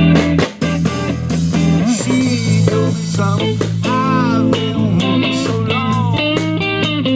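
Live blues-funk band playing: electric guitar over bass guitar and drums, with a steady bass line and regular drum hits. The music drops briefly about half a second in.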